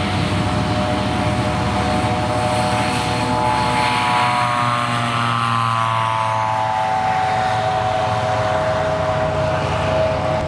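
Light single-engine propeller aircraft running at takeoff power, a steady engine-and-propeller sound whose pitch drops midway through as it passes by, then holds steady as it climbs away.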